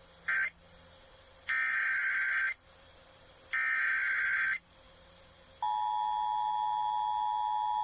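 Emergency Alert System tones heralding an Amber Alert. A brief burst and then two one-second bursts of buzzing digital SAME header data are followed, about five and a half seconds in, by the steady two-tone EAS attention signal.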